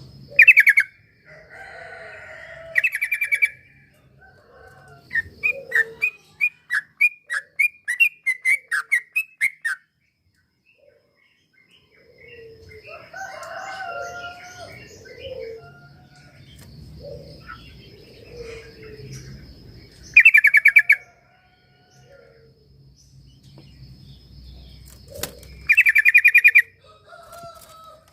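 Yellow-vented bulbul (trucuk) song played as a lure: short, loud, rapid rattling phrases several times, a run of about ten short notes a few seconds in, and softer chattering calls in the middle.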